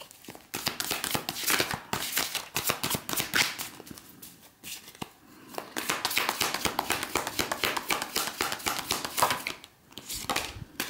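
A deck of tarot cards being shuffled overhand by hand: rapid runs of card edges slipping and tapping, thinning out briefly about four seconds in and pausing for a moment near the end.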